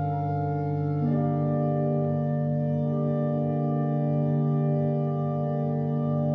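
Organ music: slow, sustained chords, the chord changing about a second in and again a couple of seconds later.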